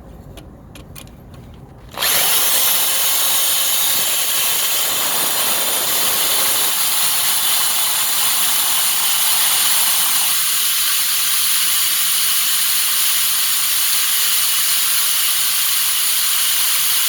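Ryobi power drill with a titanium-coated bit boring into a snapped exhaust bolt, starting suddenly about two seconds in and then running steadily with a loud, hissing cutting noise.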